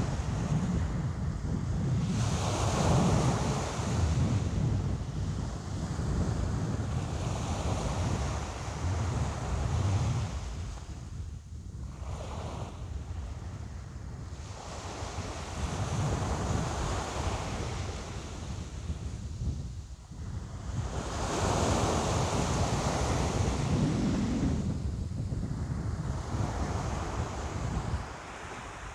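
Ocean waves breaking and washing in, in repeated surges that swell and fall away over several seconds each.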